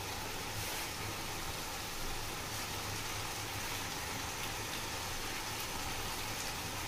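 Chicken curry sizzling steadily in a nonstick kadai over a gas burner.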